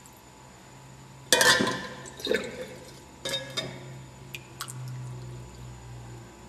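Water poured from a glass beaker into a plastic tub of water, splashing in several bursts, the loudest about a second in, followed by a few short drips and clicks.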